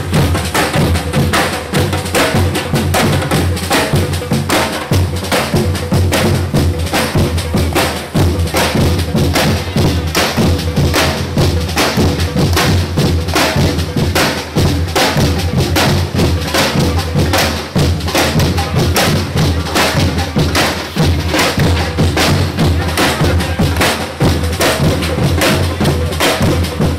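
Brazilian carnival bloco drum section (bateria) playing a continuous driving rhythm, with deep surdo bass drums under the rapid strokes of snares and other drums.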